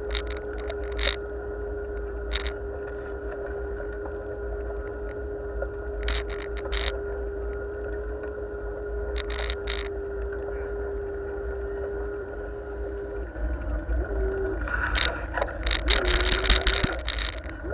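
Bicycle riding along a cycle lane: a steady low rumble of wind and tyres on the road with a steady hum and scattered rattling ticks. The hum drops out about thirteen seconds in, and a louder burst of rattling follows near the end.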